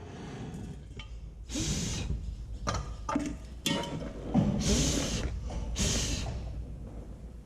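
MAP gas torch flame burning with a steady low roar while heating a stuck control-arm bushing collar, with several short louder hissing surges and a few sharp knocks.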